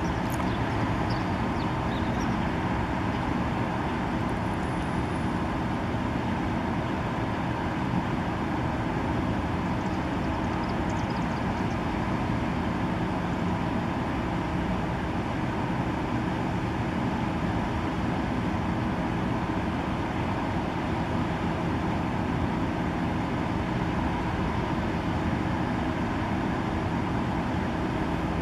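Steady urban background noise: a constant, even hum of traffic with no distinct events.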